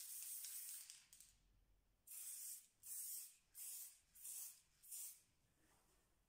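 Aerosol spray varnish can spraying in hissing bursts: one long spray that stops about a second in, then five short sprays in quick succession.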